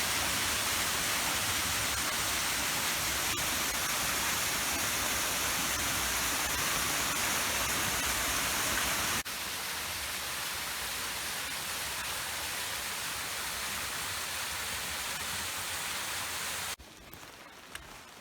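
Waterfall rushing in a deep gorge: a steady hiss of falling water. It steps down a little about nine seconds in and becomes much fainter near the end.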